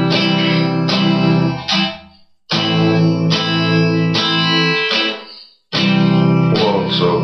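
Guitar music: strummed chords ringing out in three phrases, with two short breaks where the sound drops away before the next phrase starts.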